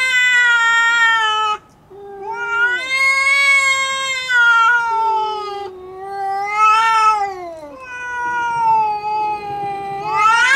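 Two cats, a tabby and a calico, caterwauling at each other in a standoff before a fight: long drawn-out yowls that rise and fall in pitch, with a short break about two seconds in and a louder, rougher yowl near the end.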